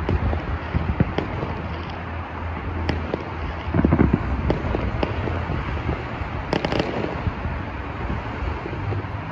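Aerial fireworks shells bursting: a string of booms and pops, with the loudest cluster about four seconds in and a quick run of sharp crackles a few seconds later, over a steady low rumble.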